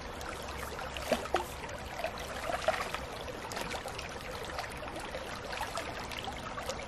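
Shallow brook running and trickling steadily, with a few short splashes and knocks.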